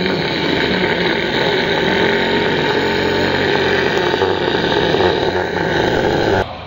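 A loud, harsh, sustained noise made with the voice, held for about six seconds and cut off abruptly near the end.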